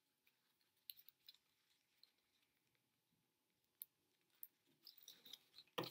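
Near silence broken by faint scattered clicks and rustles of string being tied around a pine cone, growing busier near the end with a sharper knock just before it.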